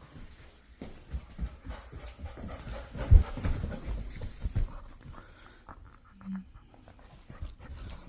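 Electronic mouse squeaks from a furry cat-toy ball, high chirps in quick runs, mixed with thumps and scuffling as a golden retriever puppy paws and mouths it. The loudest thump comes about three seconds in.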